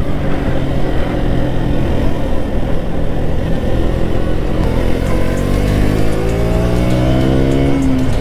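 KTM RC motorcycle's single-cylinder engine running under way, with wind rushing past. From about five seconds in the engine note climbs steadily in pitch as it revs up, then drops sharply near the end.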